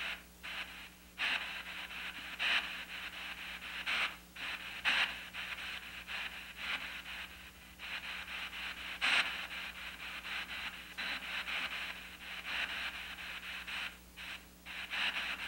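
P-SB7 Spirit Box sweeping through the FM radio band, played through a small Blackstar amplifier: hissing static chopped into rapid short fragments, with a few louder bursts of noise.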